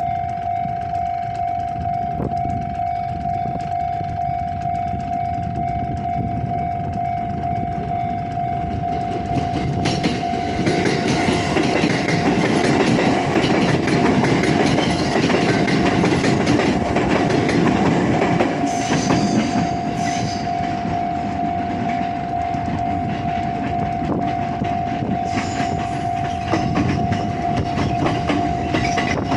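Japanese level-crossing warning bell ringing steadily while JR Central 313-series electric trains pass. About ten seconds in, a train's wheels rumble and clatter over the rail joints and grow louder for about ten seconds before easing. Another train's noise builds again near the end.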